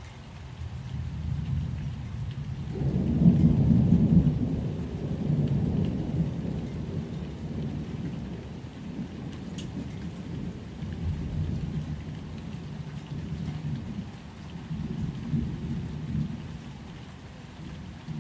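Thunderstorm: a long, low roll of thunder that builds about three seconds in and slowly fades, with a second, weaker rumble near the end, over steady rain.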